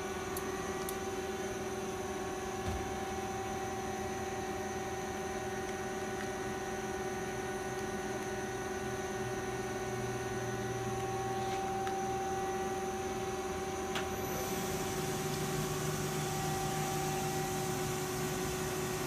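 Mighty Viper VT-25B CNC turning center running idle with a steady machine hum and a few constant tones. About two-thirds of the way through there is a click, after which a hiss and a deeper hum join in.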